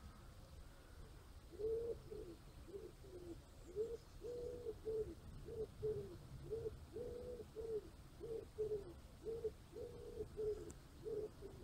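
A pigeon cooing: groups of soft, low coos, some notes drawn out longer, starting about a second and a half in and repeating steadily.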